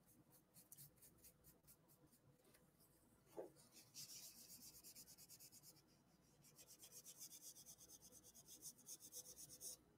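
Faint rubbing of a tissue over painted paper in a spiral sketchbook, smoothing the paint in quick back-and-forth strokes, about four a second, with a short pause partway through.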